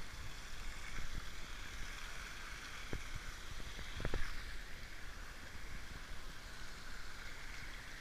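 Small stream running over rocks, a steady rush of water, with a few soft knocks about three and four seconds in.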